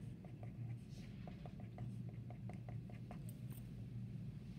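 Pen writing on paper: faint, irregular small scratches and taps of the pen strokes over a steady low hum.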